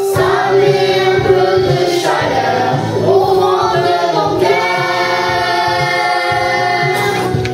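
A group of adults and children singing a song together into microphones over recorded backing music.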